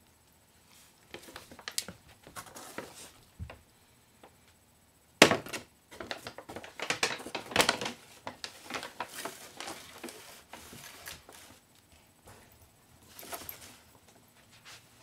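Brown paper grocery bag rustling and crinkling in irregular bursts, with a sudden loud crackle about five seconds in.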